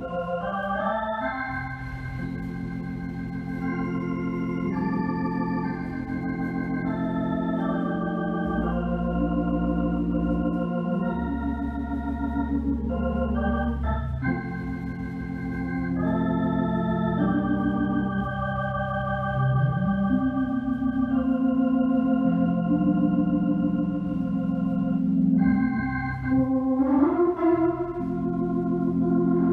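Electric organ played solo: slow, sustained chords that change every second or two over held bass notes, with a deep bass note held from about a third of the way in to nearly halfway.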